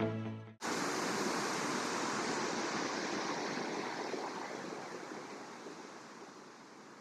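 Waterfall, its falling water making a steady rushing hiss that fades gradually over the last few seconds. A music track cuts off abruptly just before it starts.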